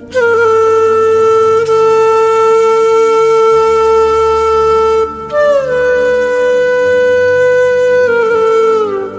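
Background music: a flute-like wind instrument playing long held notes over a low sustained drone. The second note slides downward near the end.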